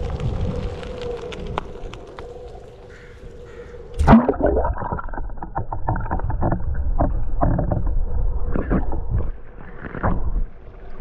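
A camera plunges into lake water with a splash about four seconds in. After that the sound turns muffled and dull, with underwater sloshing and knocking. Before the splash there is a steady hum over rustling noise.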